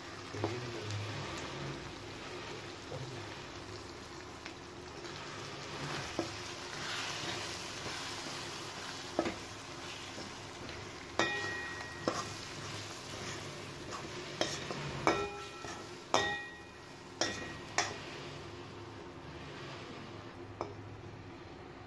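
Potatoes, tomatoes and onions sizzling in oil in a stainless steel kadai while a steel ladle stirs in spice powders. From about halfway on, a run of sharp, briefly ringing clinks as the ladle strikes the pan.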